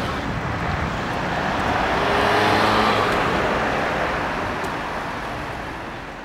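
Road traffic: cars driving past at a junction, the sound swelling as a vehicle passes about two to three seconds in, then fading out near the end.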